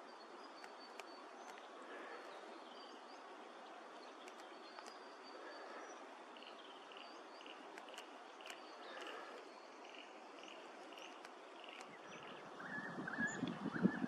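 Bush ambience: a steady hiss with faint high bird chirps and a soft call repeating about twice a second through the middle. A low rumble rises near the end.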